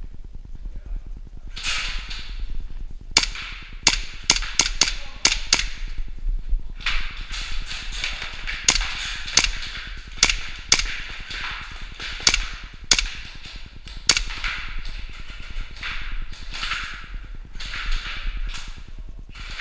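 Airsoft guns firing single shots: about twenty sharp cracks at irregular spacing, a quick run of them about three seconds in and more spread out after, with a rustling hiss between them.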